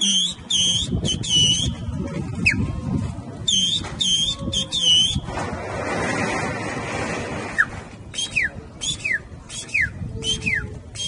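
A man imitating bird calls with his mouth: bursts of short repeated high chirps, a breathy hiss in the middle, then five quick falling whistles near the end.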